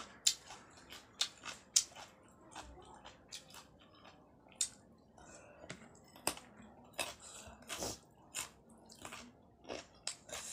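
Close-miked chewing and biting of raw carrot and rice, with sharp crunches and mouth clicks at irregular intervals.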